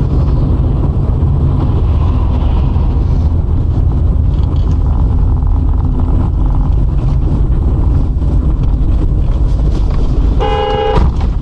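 Steady low rumble of a car driving, heard from inside the cabin through a dashcam microphone. Near the end a car horn honks once, briefly.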